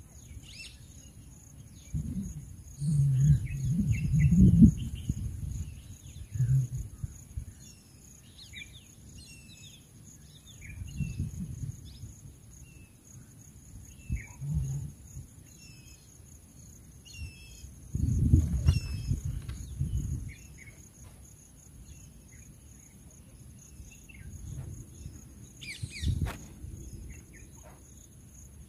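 Scattered short bird chirps over a steady high insect buzz, broken by several irregular low rumbles, the loudest a few seconds in and again just past the middle.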